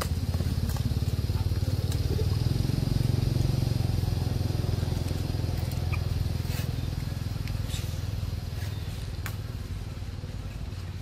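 A motor vehicle's engine running steadily, loudest a few seconds in and slowly fading. A few faint sharp clicks sound over it.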